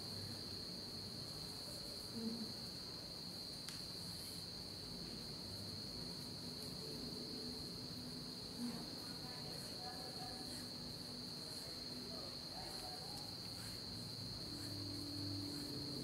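Crickets chirring in one steady, unbroken high-pitched trill, with two faint soft bumps about two seconds and eight and a half seconds in.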